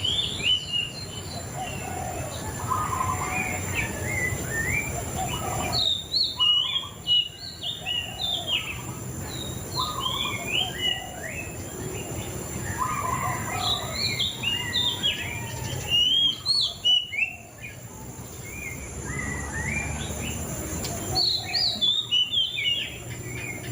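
Murai cacing songbird singing: a fast, varied run of whistled and chirping phrases that keeps going, louder in bursts about six, sixteen and twenty-two seconds in.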